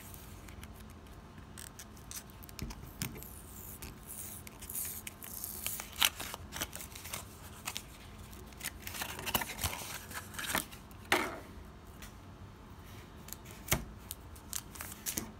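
The paper wrapper of a trading-card booster pack being torn and peeled open and the cards slid out. There are irregular crisp crackles, short rips and clicks of paper and card, with the busiest stretches about a third of the way in and again about two thirds in.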